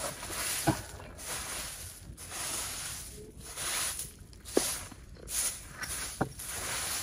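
Short grass-stalk hand broom sweeping dry leaves and dust across a concrete floor: repeated swishing strokes about one a second, with the leaves rustling and a few light knocks.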